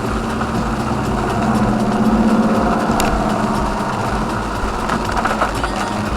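A vehicle engine running steadily with a low hum that swells slightly about two seconds in.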